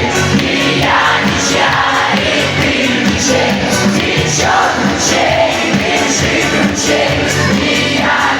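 Live band playing a Russian folk-pop song with a steady beat while a woman sings.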